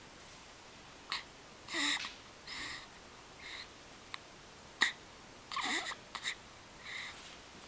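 A run of hiccups, short breathy catches coming about once a second, some with a sharp click.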